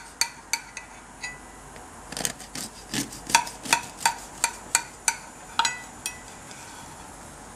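Knife sawing through a chocolate cake, the blade ticking and scraping against the ceramic plate beneath in a run of sharp clicks, about three a second, that stop about six seconds in.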